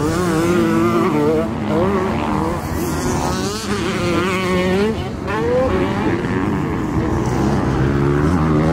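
Several motocross bikes' engines revving on the track at once, their pitch rising and falling as the riders work the throttle.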